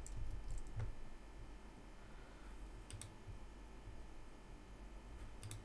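A few isolated clicks of computer keyboard keys, with a quick pair of clicks near the end.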